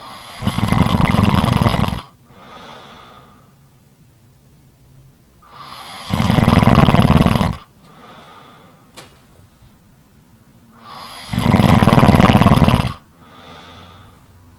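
Deep snoring in a steady rhythm: three loud snores, each about a second and a half long and roughly five seconds apart, each followed by a softer breath out. A faint click comes between the second and third snores.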